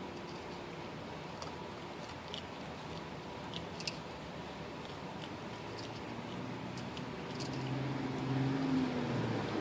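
A raccoon eating dry cat food from a bowl: scattered soft crunches and clicks of kibble over a steady low hum. A louder low drone swells in near the end.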